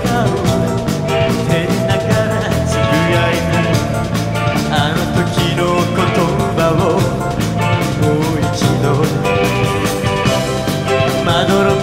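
Rock band music with drums, electric guitar and a sung lead vocal, played at a steady loud level.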